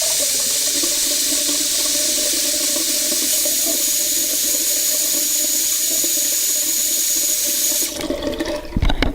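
Water running steadily from a salon sink tap or sprayer, as when hair is washed, cutting off about eight seconds in. A few sharp knocks follow near the end.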